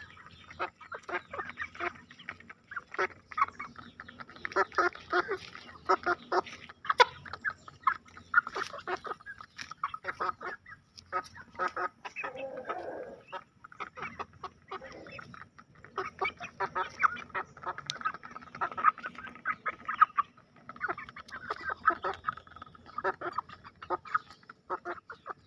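A small flock of three-month-old Bangkok game chickens feeding: frequent short peeping and clucking calls over many quick taps of beaks pecking grain off paving stones.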